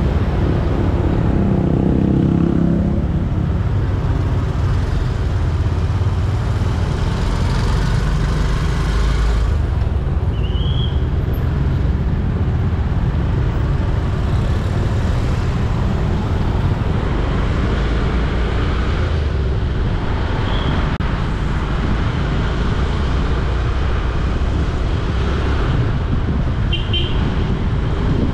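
Steady road and traffic noise heard from a moving vehicle, mostly a low rumble. A few brief high toots come through: one about a third of the way in, one about two thirds in, and a quick double one near the end.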